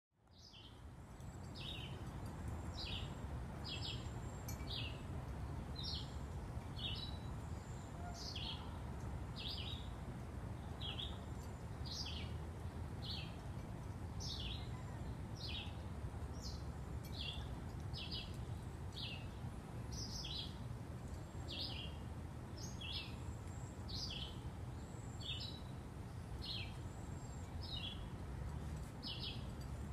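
A bird gives a short, high chip call that drops in pitch, repeated steadily about once a second over a low outdoor rumble.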